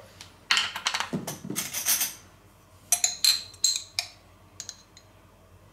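A glass jar of sweet mustard being opened: the screw-top lid grinds as it is twisted off, then several sharp clinks and taps as the lid and jar are set down on a wooden cutting board.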